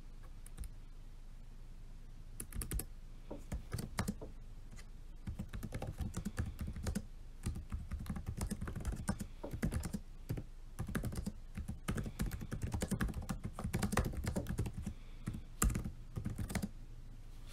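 Typing on a laptop keyboard: quick runs of key clicks in bursts separated by short pauses, starting about two seconds in.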